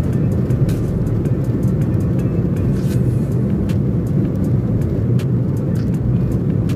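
Steady drone of a car's tyres and engine at road speed, heard from inside the cabin, with faint scattered ticks over it.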